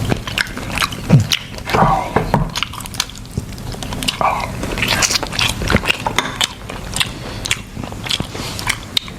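Close-miked eating sounds: biting into and chewing seafood, with many short wet clicks and smacks of the mouth.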